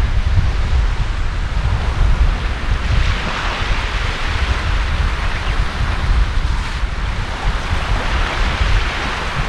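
Wind buffeting the microphone with a steady low rumble, over small waves washing onto a sandy beach, their hiss swelling and fading.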